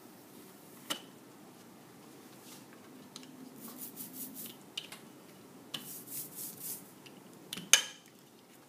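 Rubber brayer rolled through tacky printing ink on an inking slab, two runs of sticky crackling, ending in a sharp knock as the brayer is set down near the end. A single lighter tap about a second in.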